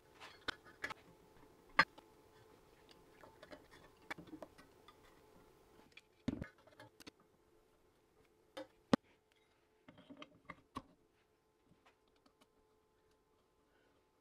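Scattered light clicks and taps of hand tools and small parts against the metal of a benchtop surface grinder's head, as the wheel guard is fitted and screwed on. Two sharp clicks are the loudest, with a duller knock about six seconds in, and only faint sparse ticks near the end.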